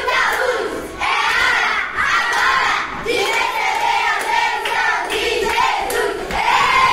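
A group of children singing a chant together at full voice, clapping along, with a long held, falling note near the end.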